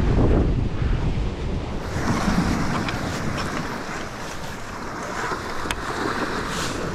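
Wind buffeting the microphone over sea surf washing on the rocks. From about two seconds in a hiss of water grows louder, and there are a couple of small clicks.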